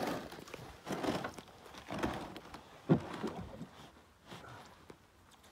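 Kayak paddle dipping and splashing in shallow water, roughly one stroke a second, with a sharp knock about three seconds in; it falls quieter over the last two seconds.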